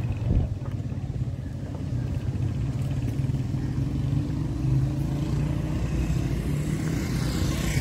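Street traffic: car and motorcycle engines running steadily, with a vehicle passing close near the end.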